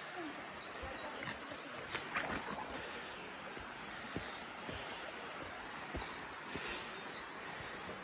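Footsteps of a hiker walking on a dirt forest trail, soft thuds about every half second, with a louder scuff about two seconds in, over the steady rush of a nearby stream.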